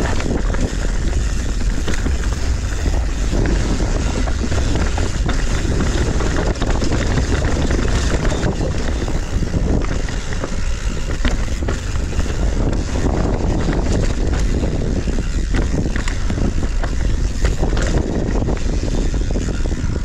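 Mountain bike being ridden over rough, rocky trail: a steady low rumble of tyres and wind, with frequent short clatters and knocks from the bike jolting over rocks and roots.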